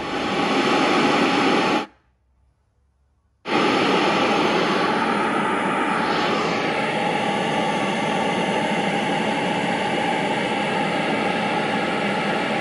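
Ground Zero GZCF 6.5 SPL pro-audio coaxial speaker in its motorcycle fairing pod playing pink noise for a frequency-response test, steady and loud. The noise cuts out for about a second and a half near two seconds in, then comes back.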